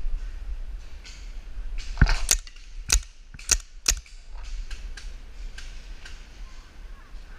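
Paintball markers firing: a quick run of five sharp pops about two seconds in, then fainter, scattered shots.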